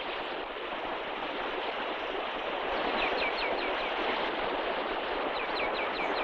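Steady rushing of river water. Two quick runs of high, falling chirps come about three seconds in and again near the end.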